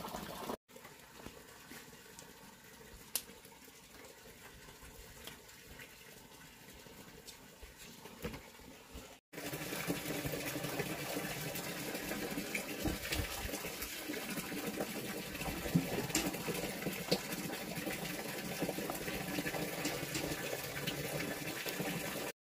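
Water running and splashing, in two edited stretches: a quieter one, then louder from about nine seconds in, with small clicks through it.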